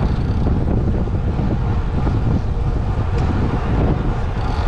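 Steady wind rushing over the microphone of a road cyclist riding at speed, with the hum of the bike's tyres on asphalt.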